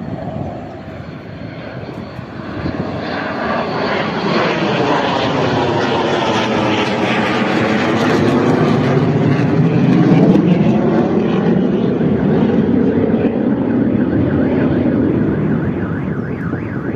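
A Dassault Mirage 2000 fighter jet flying past overhead, its single turbofan engine growing louder from a couple of seconds in to a peak about ten seconds in, with a sweeping, phasing tone as it passes, then fading away.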